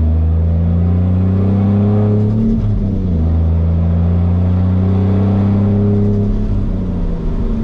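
A Toyota 1JZ straight-six engine swapped into a Nissan 240SX, heard from inside the cabin under acceleration. The revs climb, drop at a gear change about three seconds in, climb again, and settle near the end.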